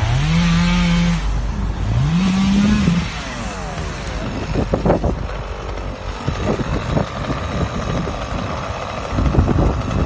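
An engine revs up twice, each time climbing quickly in pitch and holding for about a second, then drops back to a lower running noise with scattered knocks.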